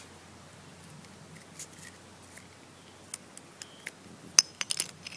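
A garden hose being cut through with a hand cutting tool: a few sharp snips and clicks in the second half, the loudest about four and a half seconds in.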